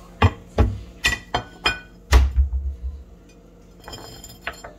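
Plates clinking and knocking together as one is taken out and set down: a quick series of sharp clinks, some ringing briefly, with a heavier thump about two seconds in, then a little faint clatter near the end.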